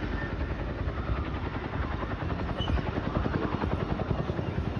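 Boeing CH-47 Chinook tandem-rotor helicopter flying past, its rotor blades beating in a fast, steady pulse.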